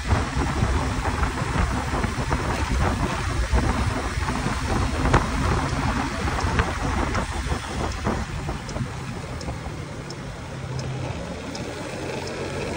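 Wind buffeting the microphone, mixed with tyre and road noise from a bike rolling along an asphalt street, easing off somewhat in the second half. A faint ticking, roughly one tick a second, runs through the later part.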